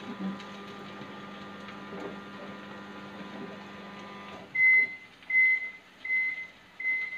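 Microwave oven running with a steady hum that stops about four seconds in, followed by four short high beeps as it finishes its cycle.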